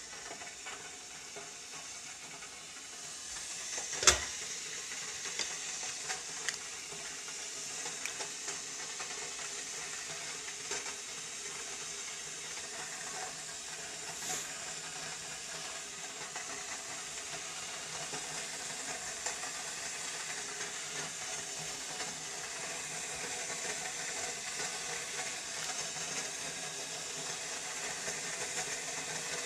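Steady hiss of a pot of boiled brewis simmering on the stove, with a sharp knock about four seconds in and a few light clinks of a ladle against the pot.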